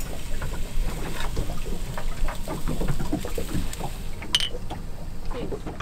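Steady wind and water noise around a small open boat, with one bright clink of two glass beer bottles tapped together about four seconds in.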